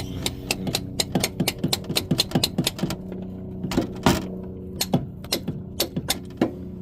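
Mallet tapping on a socket and extension to drive a new transmission axle seal into its bore. A quick run of light taps, several a second, then slower, spaced single blows in the second half.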